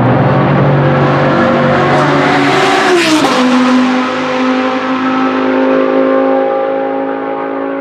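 Aston Martin Vantage GT3's Mercedes-AMG twin-turbo V8 race engine passing at speed: a steady high note drops sharply in pitch as the car goes by about three seconds in, then holds a lower note as it pulls away, slowly getting quieter.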